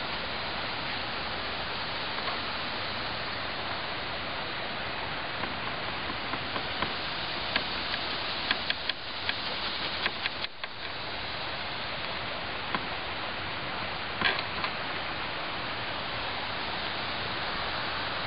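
Steady hiss of outdoor background noise, with a scatter of small clicks and taps through the middle and a sharper pair of ticks near the end.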